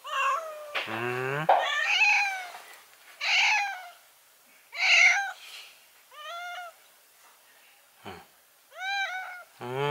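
Domestic cat meowing over and over: a string of short meows that rise and fall in pitch, with brief pauses between them.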